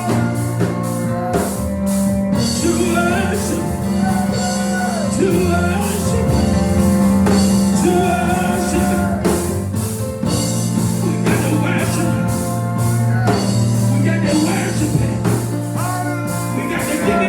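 A live church band playing gospel music, with a drum kit keeping a steady beat under sustained low chords and a singing voice.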